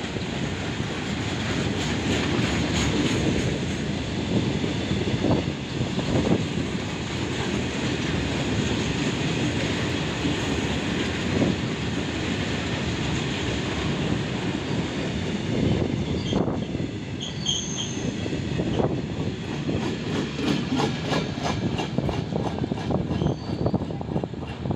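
Empty freight flat wagons rolling past, their wheels clattering steadily over the rail joints in a continuous rumble.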